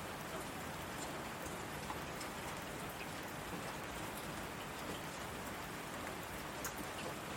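Heavy rain falling on asphalt: a steady hiss with scattered individual drop splashes.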